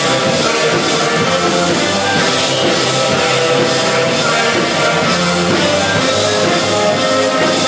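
Rock music with guitar and drum kit, played loud and steady.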